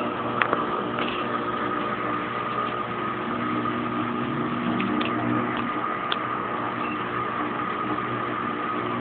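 Kenmore Oasis top-load washing machine running in its spin cycle: a steady motor hum with a thin high whine over it, and a few light ticks.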